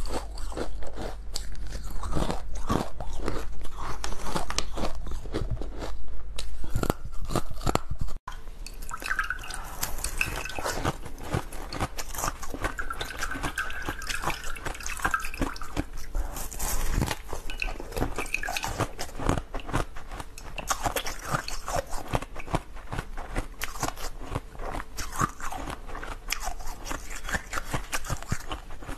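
Ice being bitten and chewed close to the microphone: dense, irregular crunching and crackling. About eight seconds in it breaks off abruptly, then goes on softer.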